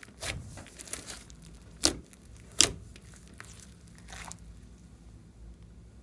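Slime being squeezed and worked by hand, giving sharp wet pops and crackles. The three loudest pops come in the first three seconds, the last of them the loudest, followed by fainter crackling.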